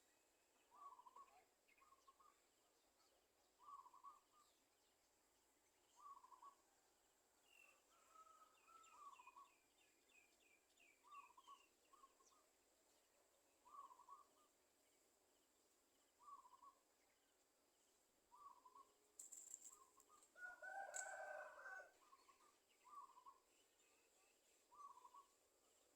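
Faint outdoor birdsong: a short call repeated about every two seconds, with a brief rattling series of higher notes about eight seconds in. A rooster crows once, louder, about twenty seconds in.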